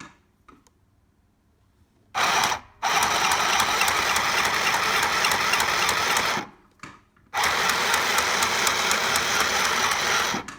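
Small electric mini sewing machine stitching a straight line in cloth, running in three spurts: a brief one about two seconds in, then two runs of about three seconds each separated by a pause of about a second.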